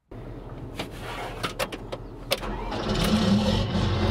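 Diesel engine of a Dewulf potato harvester running steadily, with a few short clanks, growing louder about three seconds in.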